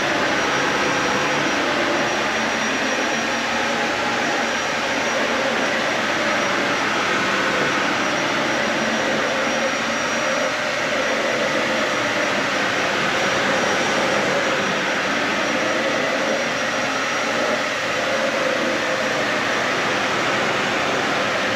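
Dyson Ball Animal 3 upright vacuum cleaner running steadily, a constant motor and airflow rush with a faint high whine.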